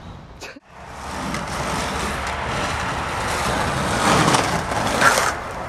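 Skateboard wheels rolling on pavement, the rumble growing louder as it goes, with a sharp clack about five seconds in.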